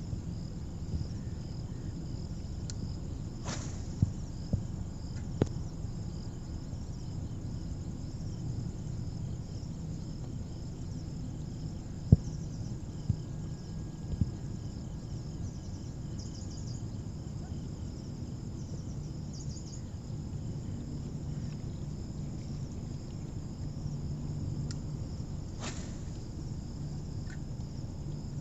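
Insects buzzing in a steady high drone, with a few pulsing trills, over a low steady outdoor rumble. A few short sharp clicks stand out, the loudest about twelve seconds in.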